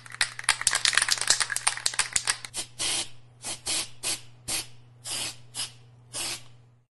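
Aerosol spray-paint can: quick rattling clicks of the can being shaken, then about eight short sprays of hiss. A steady low hum runs underneath.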